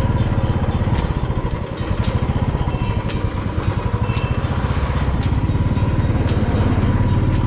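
Motorcycle engine running at low road speed, its exhaust pulsing in a rapid, steady beat, with a brief dip in level about two seconds in.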